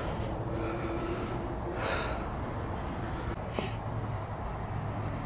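Two short hissing breaths or sniffs close to the microphone, about two seconds in and again a second and a half later, over a low steady rumble.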